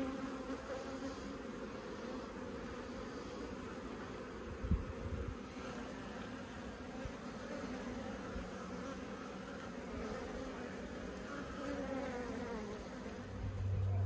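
Honeybees buzzing around an opened top-bar hive: a steady hum, with single bees flying close by and drifting up and down in pitch late on. A short low thump comes about five seconds in.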